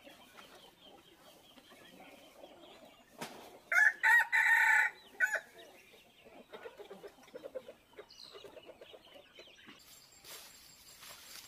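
A rooster crowing once, about four seconds in: a single loud cock-a-doodle-doo lasting about a second and a half.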